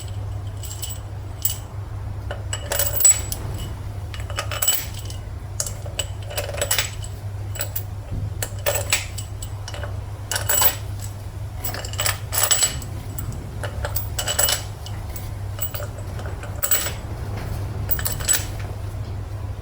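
Light metallic clinks and taps of steel tools and bolts being handled during engine reassembly, every second or two, some with a brief ring. A steady low hum runs underneath.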